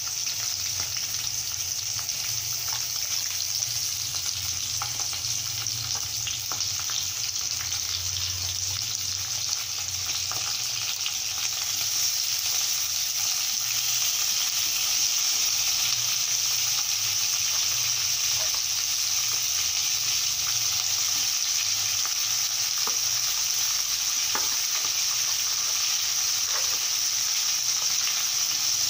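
Chicken and chicken-intestine pieces frying in hot oil in a kadai: a steady sizzling hiss that grows louder about twelve seconds in, with light clicks and scrapes of a metal spoon stirring the pieces.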